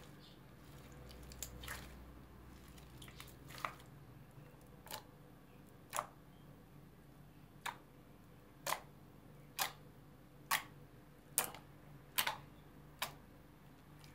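Fingertips pressing and poking a mound of glossy glitter slime, giving a series of short, sharp pops about one a second, starting a few seconds in.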